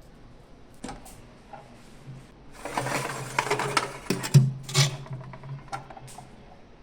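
A metal baking tray being slid into an oven: a scraping clatter of metal with several sharp knocks, loudest about four seconds in.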